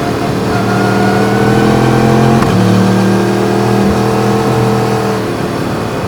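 Yamaha MT-10's crossplane inline-four accelerating, its pitch climbing, then a quick cut and drop in pitch about two and a half seconds in as it shifts up a gear with the quickshifter. It climbs again, then eases off near the end.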